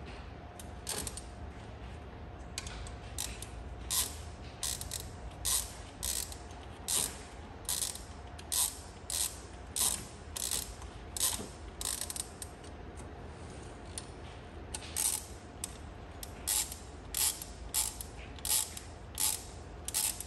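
Hand ratchet wrench clicking in repeated short strokes, about one or two a second with a brief pause partway through, as water pump bolts are run in by hand until they meet resistance.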